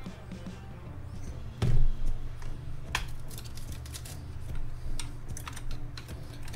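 Light metallic clicks and scrapes of a screwdriver blade working against a ring on a metal tripod column stud, with one heavier thump a little under two seconds in.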